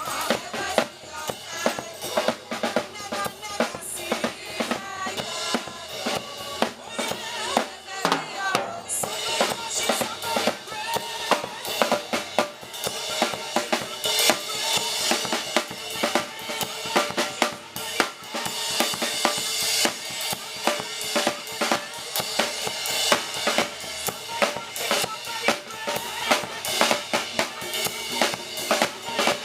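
Live gospel band music driven by a drum kit: a steady beat of bass drum, snare and rimshots over pitched instruments.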